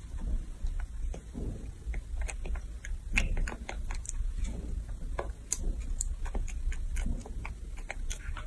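Young rhesus macaque chewing a piece of bread, with irregular wet smacking and clicking of its mouth.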